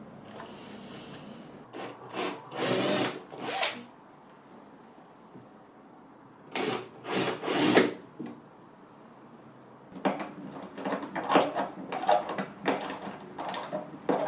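Tool work on a wooden chest, likely a handheld power tool, run in short bursts with pauses between, then a quick series of short strokes near the end.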